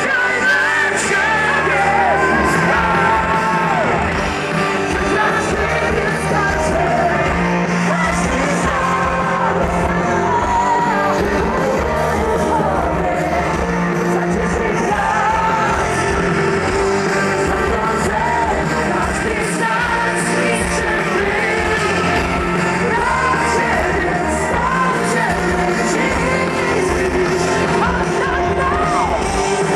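Live music with singing from the stage, played over the venue's loudspeakers, with yells from the crowd.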